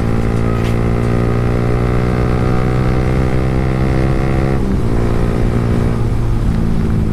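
Yamaha R15 V3's single-cylinder engine running at a steady speed while riding. About four and a half seconds in, the engine note drops suddenly, then picks up again near the end.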